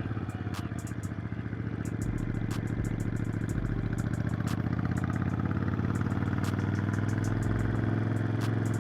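Motorcycle engine running while riding, its pitch climbing slowly as it picks up speed and easing off near the end, with scattered light clicks.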